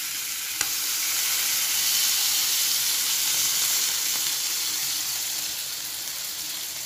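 Water poured into a hot wok of chicken pieces and fried spice paste, sizzling as it hits the pan; the sizzle swells over the first couple of seconds and then slowly dies down as the water covers the pan. This is the start of braising (ungkep) the chicken in spiced water before frying.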